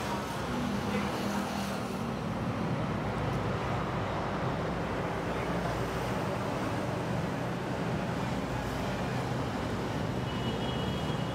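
Steady rumble of road traffic, a continuous low drone with no sharp events.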